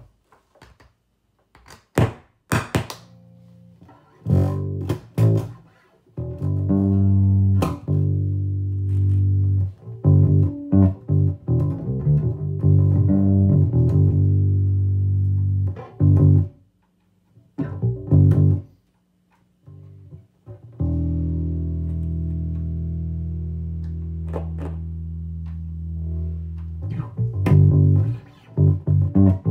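Electric bass guitar played through a solid-state Fender Bassman 100 bass amplifier, passing signal after its input jack and gain pot were replaced. A few clicks and thumps come in the first seconds, then plucked low notes with short pauses, and one note is held for several seconds in the second half.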